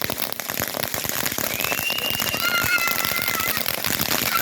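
Consumer firework crackling continuously with dense rapid pops, and several high whistling tones from about a second and a half in.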